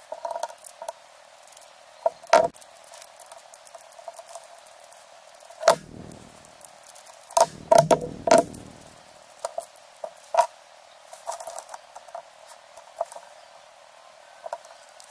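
Small metal fly-reel parts and hand tools clicking and tapping against each other and the table during hand assembly. There are a few louder knocks, about two and six seconds in, and a cluster of them around eight seconds.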